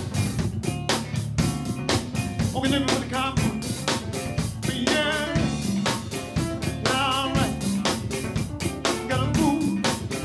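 Live R&B band playing an up-tempo groove: drum kit keeping a steady driving beat over bass, electric guitar and keyboards. A singer's short wavering vocal lines come in several times over the band.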